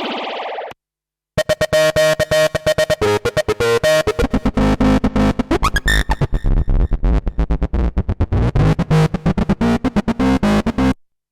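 Novation UltraNova synthesizer. A held pad fades out, then after a brief silence a new patch plays rapid, evenly pulsing sequenced notes, with a rising sweep about halfway through, and stops suddenly near the end.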